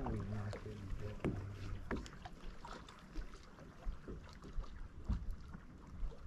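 Quiet ambience aboard a small fishing boat: scattered small knocks and ticks, a faint low hum in the first second or so, and light wind on the microphone.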